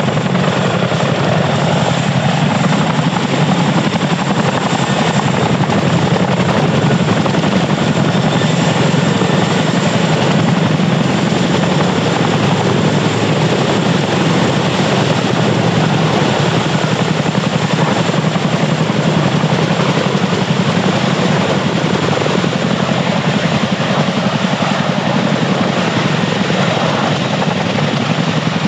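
Boeing CH-47F Chinook tandem-rotor helicopter hovering low, its twin rotors and turboshaft engines giving a loud, steady, heavy rotor noise with a thin high turbine whine above it.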